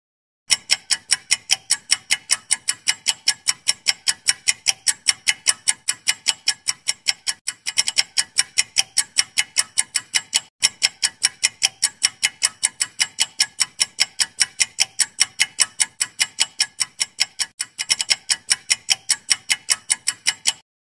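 Clock-ticking countdown-timer sound effect: sharp, even ticks about four a second. It starts about half a second in, breaks off briefly about halfway through and restarts, and stops just before the end.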